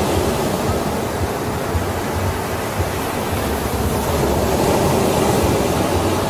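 Steady wash of ocean surf: waves breaking in a continuous, even rush with a low rumble beneath.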